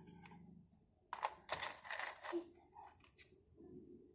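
Shells clicking and rattling as they are handled: a quick run of sharp clicks about a second in, then a few lighter clicks.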